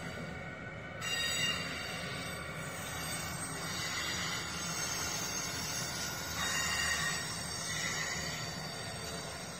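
Amtrak passenger train rolling past behind an ACS-64 electric locomotive: a steady rumble and clatter of the cars' wheels on the rails, heard from inside a car. It swells about a second in, with brief high squealing patches near the end.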